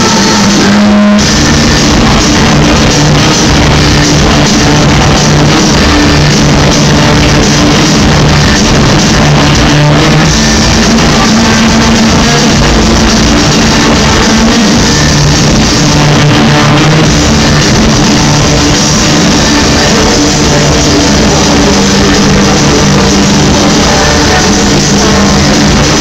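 A live rock band playing loud, with drums, guitar and heavy sustained bass, heard from among a large arena audience. There is a brief break in the high end about a second in.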